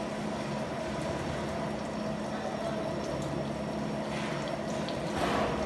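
Gear-cutting machine running on a large ring gear: a steady motor hum with a few held tones under an even hiss, growing louder near the end.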